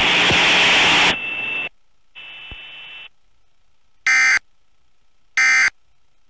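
Corrupted Emergency Alert System test broadcast audio. A loud blast of harsh static-like noise cuts off about a second in, followed by a brief high steady tone and a fainter tone. Then come two short, harsh electronic beeping bursts about a second and a half apart.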